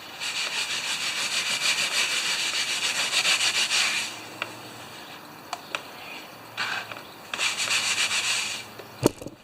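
Fast, rhythmic back-and-forth rubbing of a cloth or glove wiping up spilled engine oil, in two spells with a pause of a few seconds between. A few small clicks in the pause and a sharp knock near the end.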